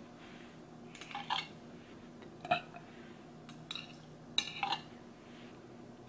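Metal chopsticks clinking against a glass baking dish while picking up noodles: several sharp clinks, each with a brief ring.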